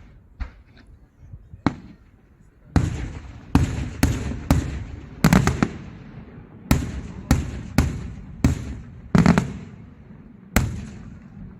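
Daytime fireworks going off: a rapid series of about a dozen loud, sharp bangs, each followed by an echoing tail, after a few smaller pops at the start.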